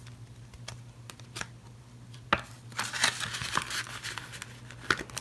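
Paper banknotes and a laminated plastic cash envelope being handled: light rustling and crinkling with a few sharp clicks, the sharpest about two seconds in and a stretch of rustling just after.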